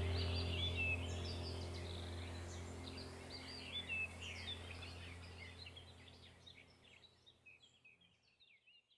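Many birds chirping over a low, steady hum, the whole soundscape fading out gradually to silence.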